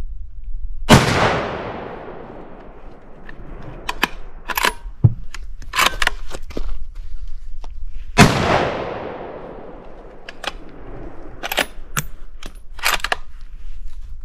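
Two shots from a scoped .308 bolt-action rifle, about seven seconds apart, each followed by a long echo that fades over about two seconds. Between and after the shots come quick sharp metallic clicks of the bolt being worked to chamber the next round.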